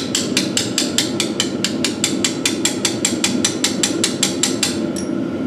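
Rapid, even hammer taps, about five a second, on a core (freeze) plug in a Ford 302/351 small-block engine block, knocking the plug so it turns in its bore and can be pulled out. The tapping stops near the end.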